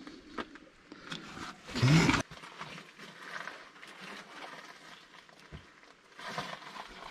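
Work noises from refitting steel cover panels on an excavator: a wrench on the cover-plate bolts, light clanks and scrapes, one louder drawn-out sound about two seconds in, and a short clatter near the end as a side panel is lifted into place.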